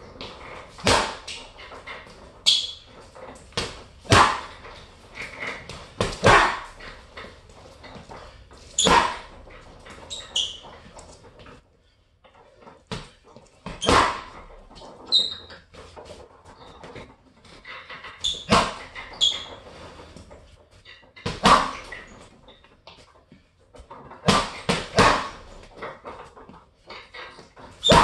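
Boxing gloves punching an Everlast heavy bag in short combinations every few seconds, each punch a sharp thud, with a quieter pause about midway. A few short high squeaks come between punches.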